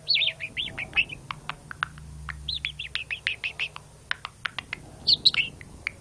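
Young male budgerigar chattering close to the microphone: a rapid run of short chirps, clicks and warbled squeaky notes, louder in phrases near the start, about two and a half seconds in and about five seconds in.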